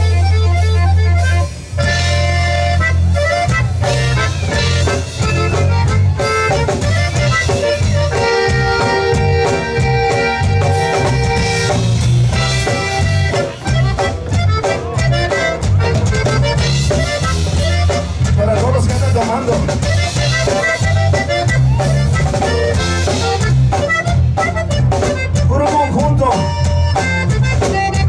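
Conjunto band playing: accordion leading over a steady bass and drum beat, with long held accordion chords about a third of the way in.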